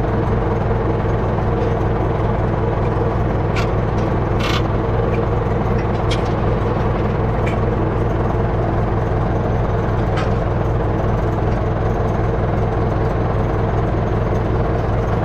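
International 474 tractor engine running steadily, pulling a hay tedder, with a few sharp clicks through the drone.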